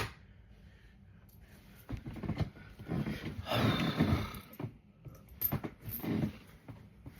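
A person's rough, raspy vocal sounds in several bursts, the longest lasting about a second in the middle, after a single sharp click at the start.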